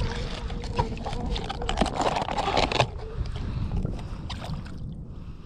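Wind and water noise aboard a small fishing boat, with scattered knocks and clicks. The noise is busiest about two to three seconds in.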